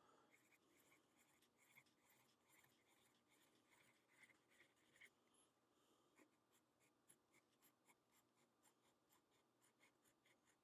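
Very faint pencil scratching on sketchbook paper: many short, quick strokes as a row of repeated pattern marks is drawn.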